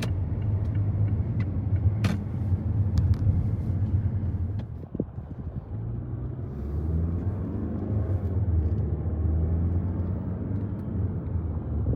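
Car driving: a steady low rumble of engine and road noise. It dips briefly about five seconds in and comes back stronger from about six and a half seconds on.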